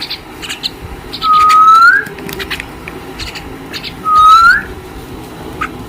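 Two loud whistles, each a held note that turns upward at the end, with short chirps and clicks from pet common mynas (salik birds) between them.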